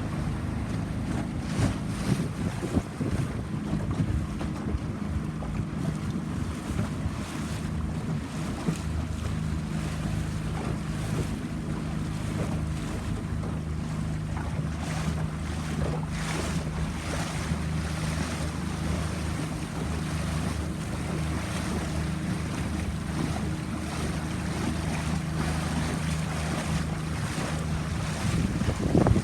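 A boat's engine running steadily at cruising speed, a low even hum. Water rushes past the hull, and gusts of wind buffet the microphone.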